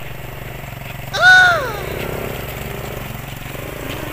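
Small ATV engine idling with a steady low rumble. About a second in, a person gives one short, loud, high-pitched cry that rises and then falls in pitch.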